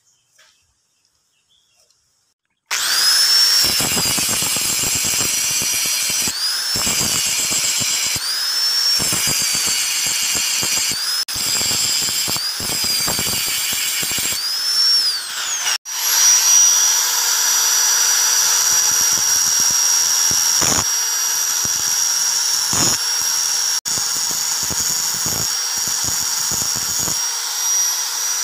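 Handheld angle grinder starting up about three seconds in and grinding a steel knife blade. Its whine sags and recovers every couple of seconds as the disc is pressed onto the steel. It breaks off sharply about halfway through, then runs on more steadily.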